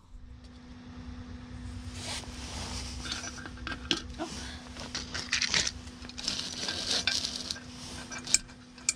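Metal clinks, clicks and rattles of a small metal-and-glass candle lantern being handled while its tealight is lit, with a few sharper clicks about four seconds in and near the end. A thin steady low hum runs underneath.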